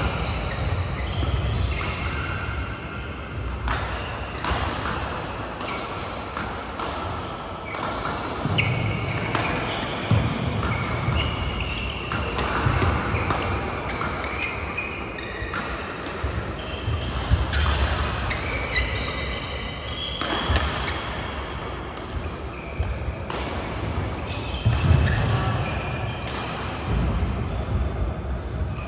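Badminton play on several courts at once: rackets striking shuttlecocks in sharp pops, shoes squeaking on the court mats and feet thudding on the floor, in an echoing hall.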